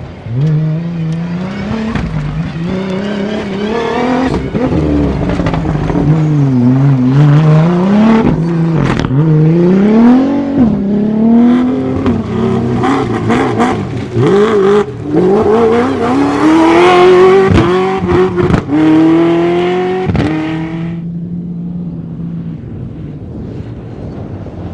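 Cross-country rally car engine revving hard, its pitch climbing and dropping again and again through gear changes, broken by a few sharp cracks. Near the end it falls back to a quieter, steady lower engine note.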